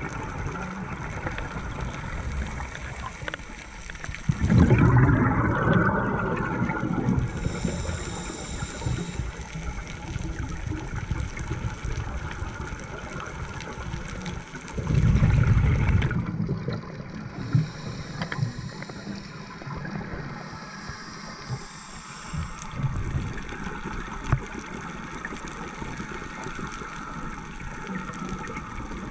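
Underwater sound through a dive camera's housing: two loud bursts of a scuba diver's exhaled regulator bubbles, about five seconds in and again about fifteen seconds in, over a steady low hiss, with fainter bubbling later.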